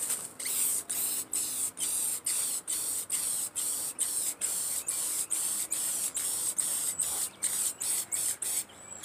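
Aerosol spray paint can hissing in rapid short bursts, about three a second, laying a black base coat on a small panel; the spraying stops just before the end.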